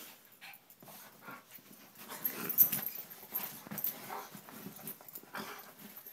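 Dogs play-fighting on a bed: irregular short dog noises mixed with scuffling on the bedding, loudest about two and a half seconds in.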